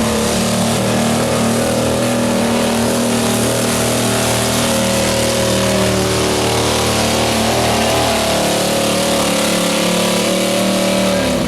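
Competition pulling truck's engine running flat out at high, nearly steady revs under load while dragging the weight sled.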